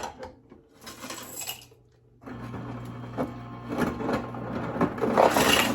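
Samsung refrigerator's ice dispenser running: a click, then from about two seconds in a steady motor hum with ice cubes clattering out, growing louder near the end. The ice maker is freshly unjammed and dispensing again.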